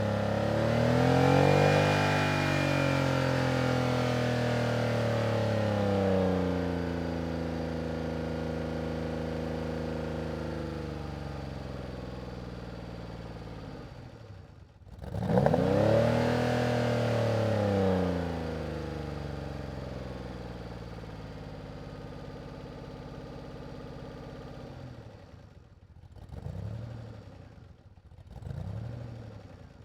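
DeLorean DMC-12's V6 engine driving, revving up and then easing off with the pitch falling away slowly over several seconds. After a short break about halfway it does the same again, and near the end come three short revs about two seconds apart.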